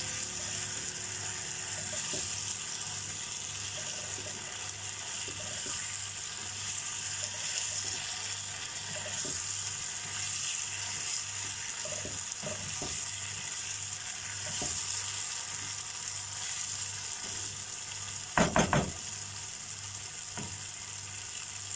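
Chicken drumsticks in a spiced yogurt masala sizzling and frying in a nonstick kadai, stirred with a wooden spoon that scrapes and clicks against the pan. Near the end comes a quick run of three or four loud knocks.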